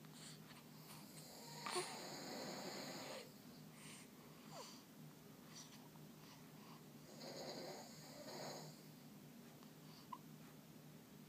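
Sleeping baby's faint, noisy breathing, with two longer breaths about two and seven seconds in.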